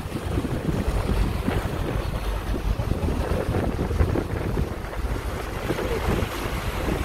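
Wind buffeting the microphone over the steady rush of a passenger boat's churning propeller wash and wake as the boat runs under way.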